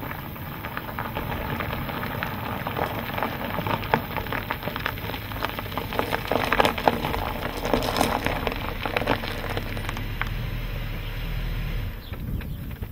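Tyres of a Mercedes-Benz S-Class crunching and popping over gravel as the car rolls slowly along a gravel track, the crackling thickest about six to nine seconds in. It thins out after about ten seconds, leaving a low steady hum until the car stops near the end.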